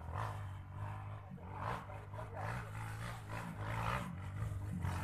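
Trail motorcycle engine revving hard up and down as the bike climbs a steep dirt hill, faint with distance.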